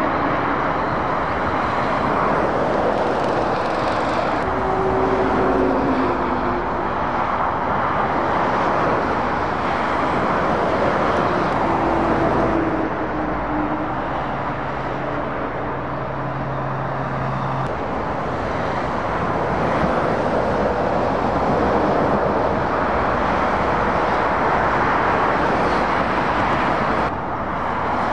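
Heavy road traffic: lorries and cars passing at speed, a steady rush of tyre noise with the drone of diesel truck engines standing out at times.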